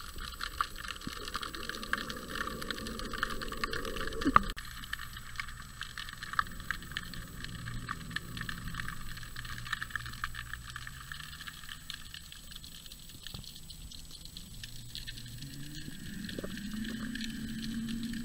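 Underwater ambience picked up by a submerged camera: a constant fine crackle of small clicks, with a low hum that climbs in pitch and grows louder over the last few seconds.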